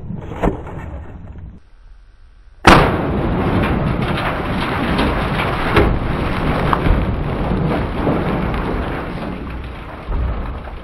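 A sudden loud thunderclap about three seconds in, followed by a long rumble with rain-like crackling hiss that slowly fades, a thunderstorm sound effect laid over the shooting clips. A sharp crack is heard once in the first second, before a brief near-silent gap.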